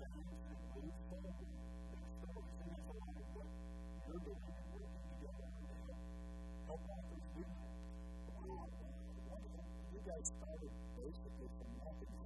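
Steady electrical mains hum, with a man's voice faint and muffled beneath it.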